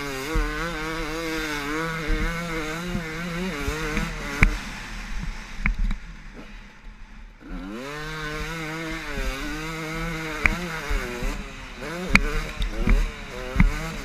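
KTM 250 SX two-stroke motocross engine at speed, revving hard with its pitch wavering as the throttle works. It eases off for about two seconds near the middle, then revs up again, with sharp knocks here and there.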